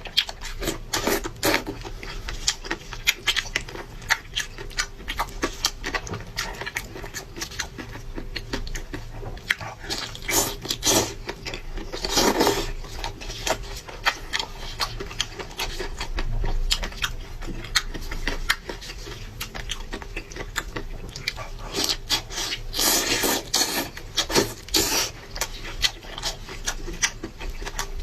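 A person eating skate close to the microphone: irregular chewing, smacking and small clicks, with a few louder bites.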